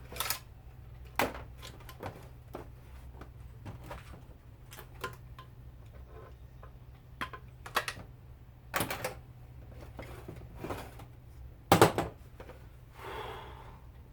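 Irregular clicks and metal knocks from hand tools working on a garbage disposal, with one louder knock near the end followed by a short scrape, over a steady low hum.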